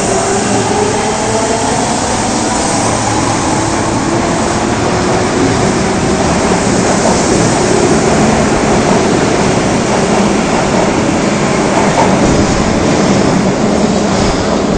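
Osaka subway 22 series train pulling out of a station. Its traction motors whine upward in pitch during the first few seconds, then the dense, steady running noise of the cars and wheels on the rails takes over.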